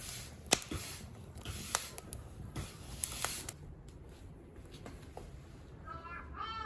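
Several sharp clicks and rustling handling noise in the first few seconds. Then, near the end, a crow starts cawing in short repeated calls.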